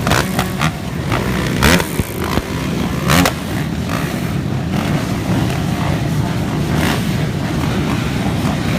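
Motocross motorcycle engines running steadily. Two short, loud bursts come about two and three seconds in.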